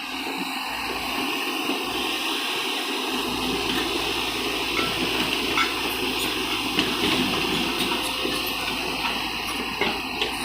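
A steady rushing, hissing noise, growing fuller and deeper about three seconds in.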